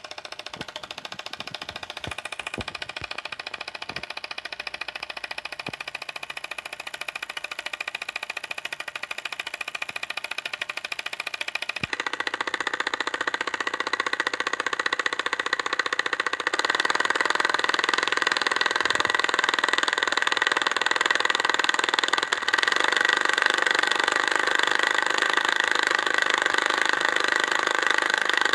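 Tiny 3D-printed solenoid engine running, its solenoid pulling the plunger many times a second in a fast, steady clatter. It grows louder about twelve seconds in and steps up again a few seconds later.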